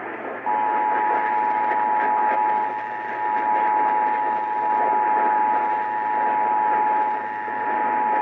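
Emergency Alert System two-tone attention signal (853 and 960 Hz together) broadcast over AM radio, starting about half a second in and holding steady, over a constant hiss of AM reception static. It opens the station's required test of the Illinois Emergency Alert System.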